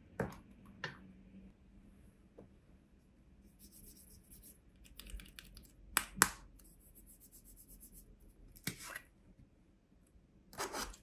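Small plastic paint pot being handled and its snap-on lid pried open: light scratchy ticks, then two sharp clicks close together about six seconds in as the lid comes off, with more clicks and rustling near the end.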